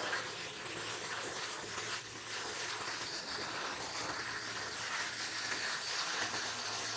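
Car wash equipment running: a steady hiss over a faint low hum.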